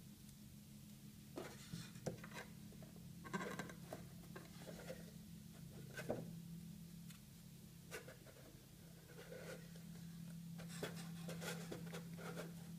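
Quiet handling sounds of a plastic Play-Doh Fun Factory press and modelling dough: soft rubs and scrapes with a few light plastic clicks and taps at irregular moments as the dough is loaded and the yellow lever is worked. A steady low hum runs underneath.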